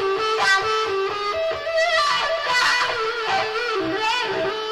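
Live band music led by an electric guitar solo of bent, wavering notes over the rhythm section.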